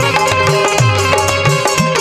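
Instrumental passage of Indian folk music: a hand drum played fast, its bass strokes swooping down in pitch, under a held-note melody.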